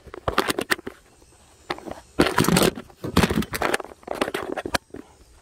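Handling noise from a handheld phone being moved about: fingers rubbing and knocking near the microphone, heard as several short bursts of crackling and scraping with sharp clicks.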